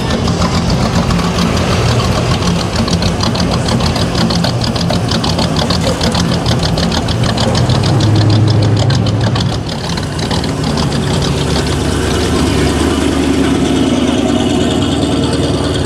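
Classic American V8 cars rolling past one after another at low revs, engines rumbling steadily. The loudest pass, a Dodge Charger, comes about eight seconds in.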